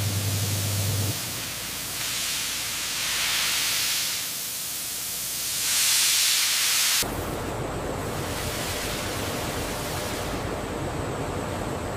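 Hiss of steam rising off a paper machine's steam-heated drying cylinder, swelling louder twice, with a low hum in the first second. About seven seconds in it cuts abruptly to a steadier, lower rushing noise.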